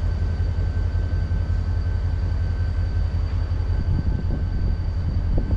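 Steady low rumble of a diesel locomotive, an EMD SD45-2 with a 20-cylinder engine, working slowly as it heads into the yard.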